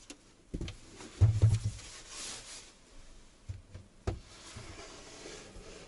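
Homemade plywood kotatsu box being pushed into a tight space under a wooden desk: a few wooden knocks and low thumps as the frame scrapes and catches, with the sleeping-bag cover rustling about two seconds in.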